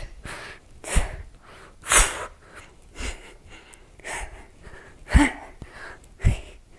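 A woman breathing out hard with each rep of weighted crunches: about six short, noisy breaths, roughly one a second, a couple carrying a slight grunt. These are the effortful exhalations of lifting the torso under load.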